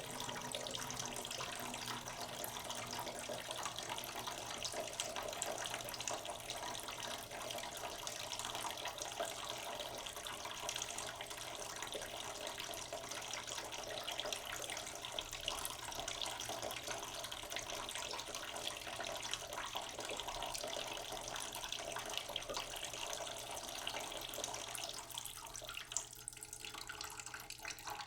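Tap water running steadily into a sink, a dense splashing and pattering stream that thins and gets a little quieter about 25 seconds in.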